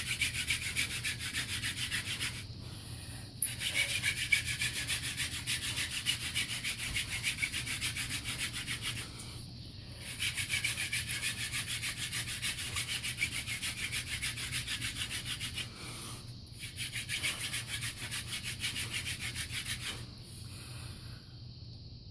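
Hand-drill friction fire: a prickly lettuce spindle spun rapidly back and forth between the palms in the notch of a western red cedar hearth board, a steady fast wood-on-wood rubbing. It breaks off briefly three times as the hands shift back up the spindle and stops about 20 seconds in. This is the drilling that grinds out hot dust to form an ember.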